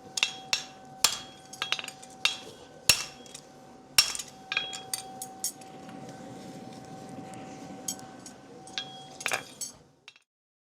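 Farrier's hammer striking a hot horseshoe on the anvil, irregular blows with the steel ringing between them. The blows come thick for about five seconds, thin out to a low hiss, and a last couple land before the sound cuts off near the end.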